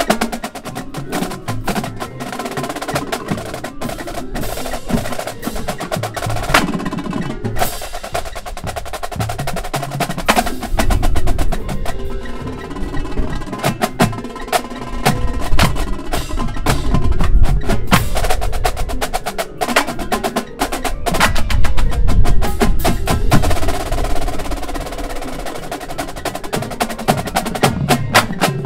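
Marching drumline playing together: snare drums, tenor drums and bass drums in fast, dense patterns. The low bass-drum notes are strongest through the middle.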